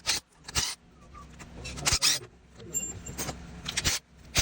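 A series of irregular, sharp metallic clicks and clinks from hand tools and metal parts during engine teardown, over a low steady hum.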